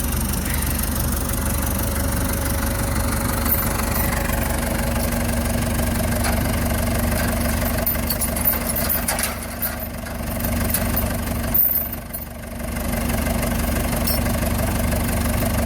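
Diesel engine of a Ford 755B backhoe running steadily, its level dipping briefly a couple of times in the second half.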